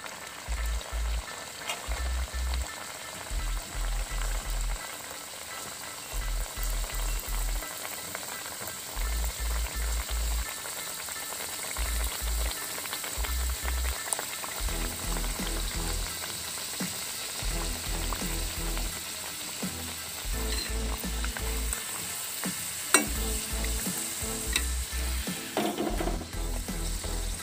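Stuffed sattu puri deep-frying in hot oil in a kadai, with a steady sizzle and bubbling. A low pulsing beat runs underneath, and a metal ladle clicks against the pan a couple of times near the end.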